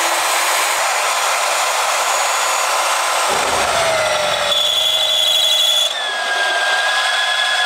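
Drill press running, its bit cutting into a steel piece to enlarge a pilot hole. A high steady squeal from the cut comes in about four and a half seconds in and drops lower about a second later.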